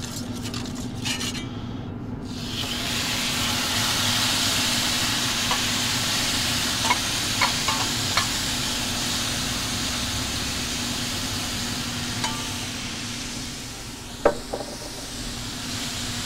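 Wet stewed shredded beef sizzling hard on a hot oiled skillet in a pellet grill. The sizzle starts about two seconds in, as the meat's liquid boils off in clouds of steam. There are a few sharp taps of a metal spatula scraping the meat from a bowl, a single knock near the end, and a steady low hum underneath.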